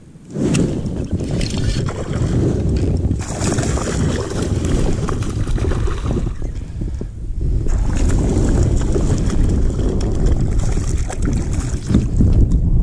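Wind buffeting the microphone: a loud, gusty rumble that comes on suddenly about half a second in and carries on, swelling and easing a little.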